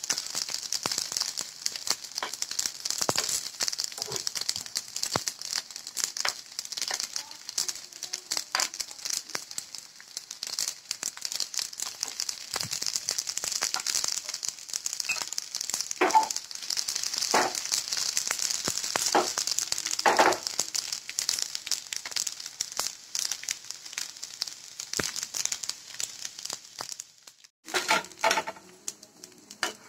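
Vermicelli cutlets shallow-frying in oil in a nonstick pan: a steady hiss with a dense crackle of popping oil, and a few louder pops around the middle.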